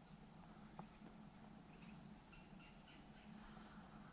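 Near silence: faint outdoor ambience with a steady high-pitched whine and one faint click just under a second in.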